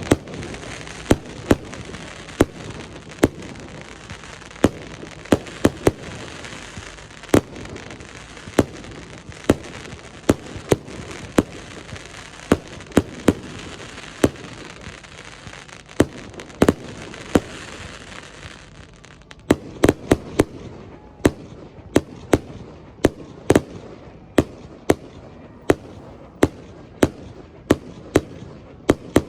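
Aerial fireworks exploding: a steady run of sharp bangs about once a second, some in quick pairs, over a continuous crackle and hiss that thins out about two-thirds of the way through.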